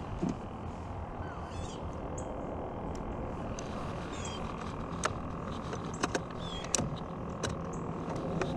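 Open-air ambience on a small fishing boat: a steady noise bed with birds chirping now and then, and a handful of sharp clicks in the second half. A faint steady hum comes in about halfway.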